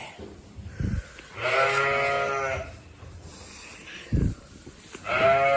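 Sheep bleating twice, each call long and drawn out, the first about a second and a half in and the second near the end, with a couple of dull low thuds in between.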